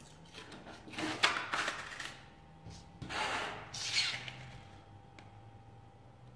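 Hands handling a thin plastic foil disc and sliding it over metal carrier discs: two rubbing, rustling sounds, about a second in and about three seconds in, with a few light taps.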